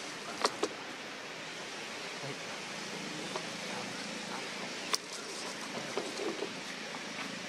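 Steady outdoor background hiss with a few sharp clicks: two close together about half a second in and another near five seconds in.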